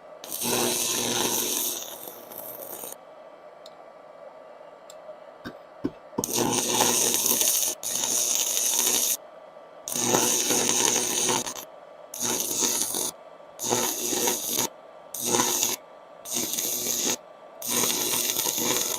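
Handheld 110V inverter stick welder's arc crackling and hissing as a rod is burned, in about eight bursts of one to three seconds that stop and start again. The rod burns off fast.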